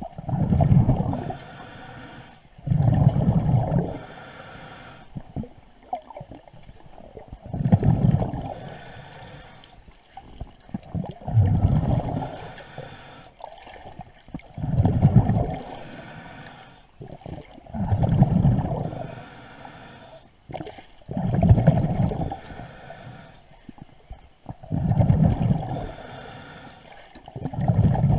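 Diver breathing through a regulator underwater: each exhalation sends out a burst of rumbling, gurgling bubbles, about every three to four seconds, with quieter breathing between.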